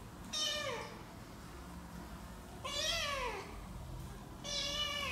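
Kittens meowing: three separate meows, each sliding down in pitch, spaced a second or two apart.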